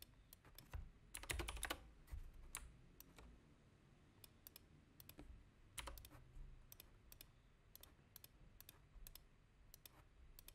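Faint typing on a computer keyboard: scattered keystrokes, with a quick run of them about a second in.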